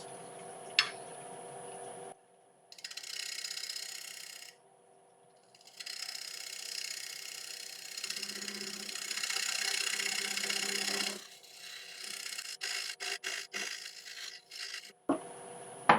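A thin parting tool cuts into a spinning Monterey cypress bowl blank on a wood lathe, making a hissing, scraping cut in several bouts with short breaks, the longest about halfway through. A faint steady lathe hum runs beneath, and short scrapes and ticks follow near the end.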